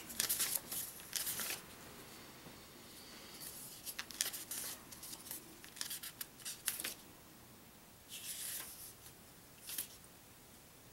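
Pages of a thin paper instruction manual being turned and rustled, in several short crisp bursts with quieter gaps between them.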